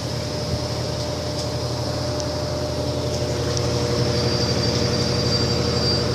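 Electrolux Essential Care LES13 top-loading washing machine spinning its drum in the intermediate spin before the second rinse: a steady motor hum and whirr that gets slightly louder as the drum speeds up toward 730 RPM.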